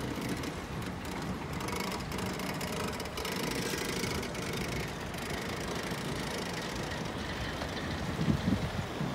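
A line of cars and pickup trucks driving past on a dirt road: a steady mix of engines running and tyre noise, with a louder burst about eight seconds in.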